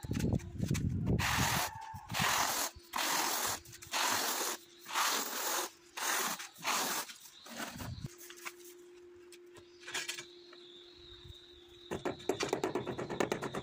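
Notched steel trowel scraping through tile adhesive on concrete in long strokes, about one a second. Near the end a rubber mallet taps rapidly on a freshly laid ceramic floor tile to bed it into the adhesive.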